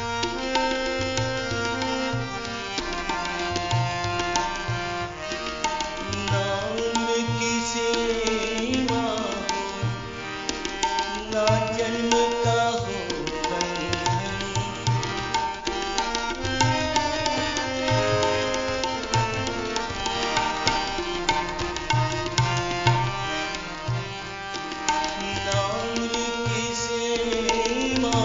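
Live ghazal music: a harmonium playing held chords and melody over a steady tabla rhythm.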